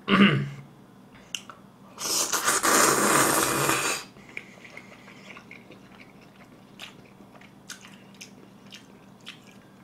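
A person slurping up a mouthful of thick, springy Chinese-style noodles in curry sauce, one loud slurp lasting about two seconds, then soft wet chewing clicks.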